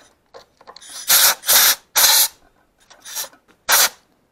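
Compressed-air blow gun fired in about five short hissing blasts, three in quick succession and two more spaced out near the end, blowing dirt away from around an engine's oil fill plug.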